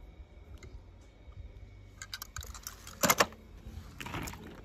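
Small hard toy cars being handled, clicking and clattering: faint ticks at first, then a run of sharp clicks with a louder clatter about three seconds in.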